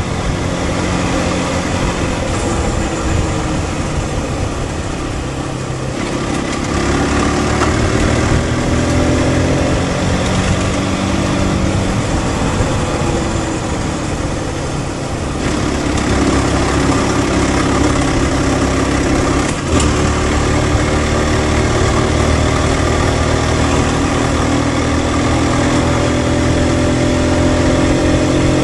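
Aprilia RS 125's single-cylinder four-stroke engine pulling on the move, its pitch climbing slowly in long pulls and dropping a few times, with wind rush over it.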